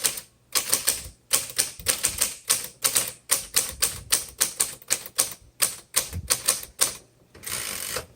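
Manual typewriter typing: a quick run of sharp keystrokes, about three or four a second, with a half-second rasping sweep near the end.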